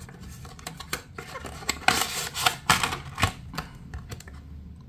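Cardboard retail box being opened by hand: the flaps bent and rubbed and the packaging slid apart, a run of scrapes, rubs and small clicks, busiest about two to three and a half seconds in.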